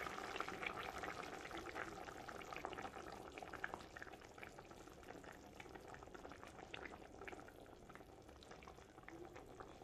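Red-oil sauce with beef and tripe simmering in a stainless pot, a faint bubbling and crackling that slowly fades, while dried-okra (djoumblé) paste is scraped into it from a bowl.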